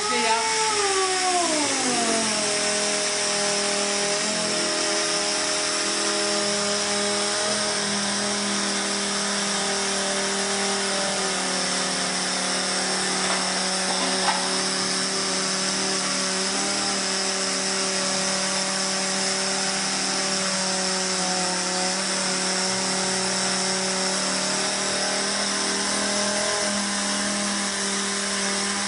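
Pneumatic random orbital sander running on plywood under downward pressure. Its whine drops in pitch over the first two seconds as it is loaded, then holds steady over the hiss of exhaust air.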